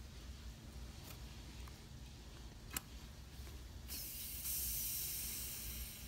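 A sharp click, then about a second later air hisses into the evacuated mason jar for about two seconds as the vacuum is broken to atmospheric pressure, fading as the pressure evens out.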